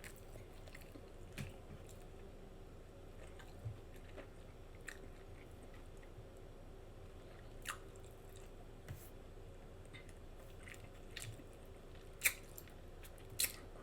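A person chewing a bacon cheeseburger with the mouth open, smacking: scattered soft, wet mouth clicks, the two sharpest near the end.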